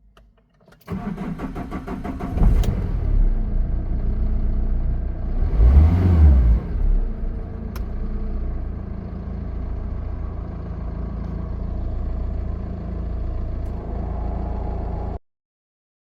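Tata car engine cranked by the starter for about a second and a half, catching and running, revved once up and back down, then idling steadily; the sound cuts off abruptly about a second before the end.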